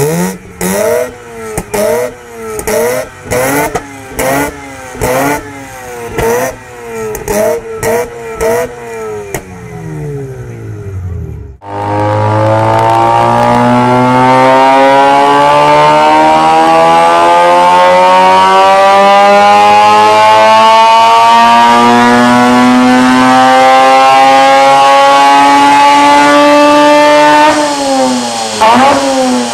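Mazda RX-8's Renesis twin-rotor Wankel rotary engine free-revved in sharp blips, about one a second, a dozen times. It then makes a long wide-open-throttle pull on a chassis dyno, pitch climbing steadily for about fifteen seconds before the revs fall away near the end.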